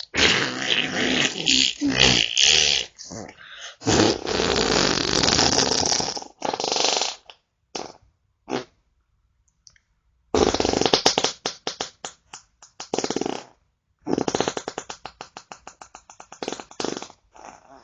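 A string of farts. Several long, buzzing ones come first, then two short puffs. After a short pause come two sputtering farts made of rapid flapping pulses, the last one slowing down and fading out.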